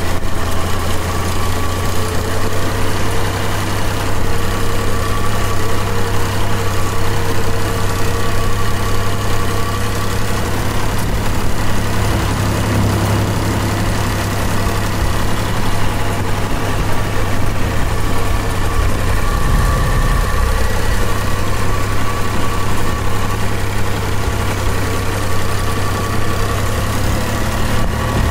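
New Holland tractor's diesel engine running steadily as the tractor drives over rough ground, heard from on board.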